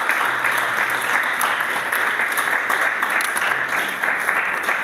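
Congregation applauding, a dense, steady clapping.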